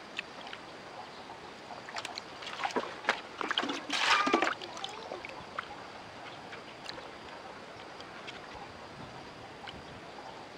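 Water sloshing and splashing in a plastic basin as a plucked chicken is washed and rubbed by hand, with a run of splashes peaking about four seconds in.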